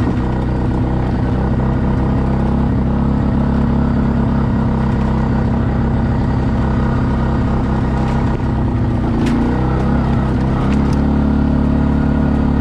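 ATV engine running steadily while riding along a dirt track, its pitch shifting briefly about nine seconds in before settling again, with a couple of sharp clicks near the end.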